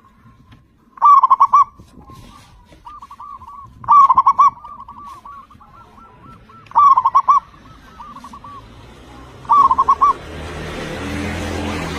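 Zebra dove (perkutut) singing: four loud phrases of rapid cooing notes, about one every two and a half to three seconds, with softer coos between them. A rising rushing noise with a low hum comes in near the end.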